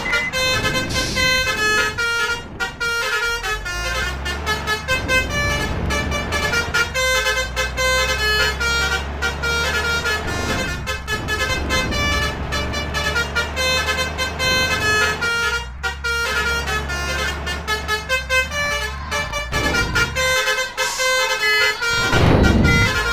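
Basuri 'telolet' multi-tone musical horns on convoy vehicles, playing a rapid melody of stepping notes, over a steady low engine drone.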